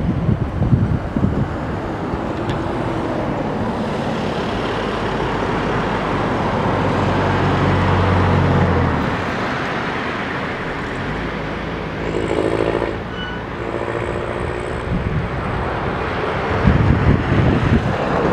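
Cessna Grand Caravan's turboprop engine and propeller at climb power after takeoff: a steady broad drone with a low steady tone in the middle, and wind gusting on the microphone at the start and near the end.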